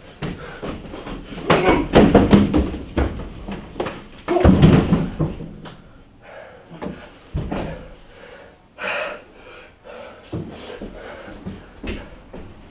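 Thuds, slams and scuffling of a staged fistfight, bodies knocking against a wall and table, loudest in the first five seconds and then dying down to lighter scuffs.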